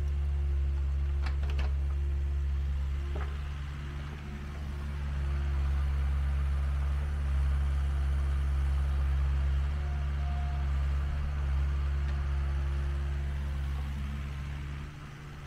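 Compact excavator's diesel engine running steadily as it works, a constant low hum, with a few faint knocks in the first few seconds. The hum dips briefly near the end.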